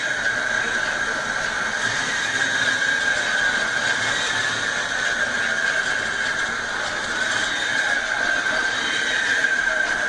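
Floodwater rushing steadily along a street, with a steady high-pitched whine running through it.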